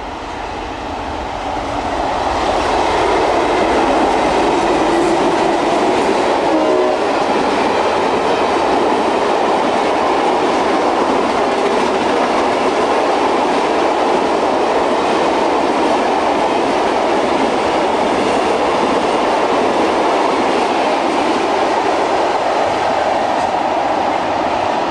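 Diesel-hauled freight train of hopper wagons passing close by, the wagons rumbling and clattering over the rail joints. The noise swells over the first two seconds or so as the locomotives draw near, then holds steady as the wagons roll past.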